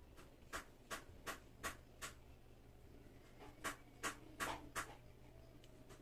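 Light clicks from a bicycle chain being oiled drop by drop, the bottle nozzle working along the links: a run of five evenly spaced ticks, a pause, then four more, about two and a half a second.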